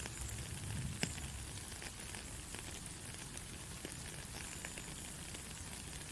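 Steady rain falling, an even hiss with a low rumble beneath and scattered drops ticking; one sharper drop about a second in.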